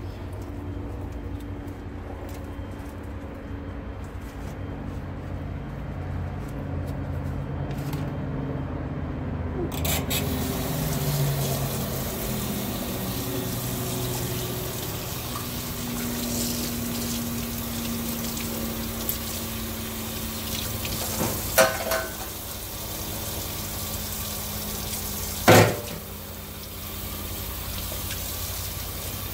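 Kitchen tap water pouring into a stainless steel sink and splashing over a cleaned fish, switched on about a third of the way in after a low rumble. Two sharp knocks come near the end, the second the loudest.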